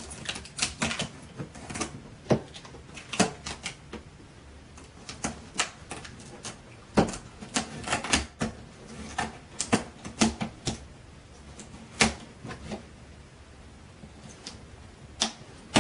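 Scissors cutting through the tape seal on a cardboard computer box: a long run of irregular sharp snips and clicks.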